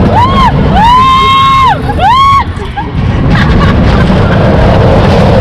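Riders screaming on a moving amusement ride: three high screams in the first couple of seconds, the middle one held for about a second. A heavy, steady rush of wind noise on the microphone runs underneath.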